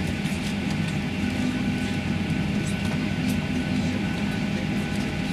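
Steady drone of an airliner cabin on the ground: Boeing 737 air conditioning and engines running, with a few faint clicks.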